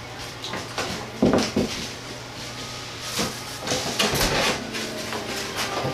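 A sheet of plywood subfloor knocking and scraping against the wooden floor joists as it is worked down into place, with the heaviest thump about a second in.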